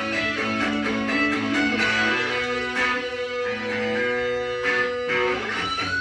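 Guitar-led rock music playing from a vinyl record on a turntable, with held notes.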